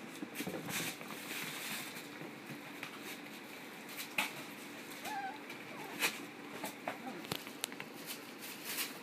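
Puppies scampering about on a hardwood floor: scattered light taps and clicks of paws and claws, with a brief high squeak about five seconds in.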